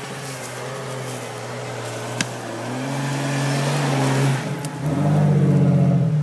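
Lifted Jeep Cherokee XJ driving up a snowy track under power, its engine revving higher about three seconds in and again near the end as it comes close and passes. A single sharp click about two seconds in.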